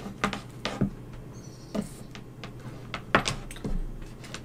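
A repaired laptop charger cable being handled and laid out on a wooden workbench: a series of light, irregular clicks and taps as its plugs and cable knock against the board.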